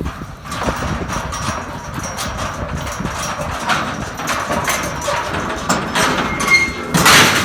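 Horse hooves clip-clopping over ground in an uneven stream of knocks, with a brief, loud rushing noise about seven seconds in.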